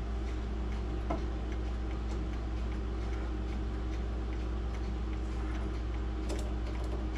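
Mechanical clock ticking over a low steady hum, with a few faint metal clicks about a second in and again around six seconds in.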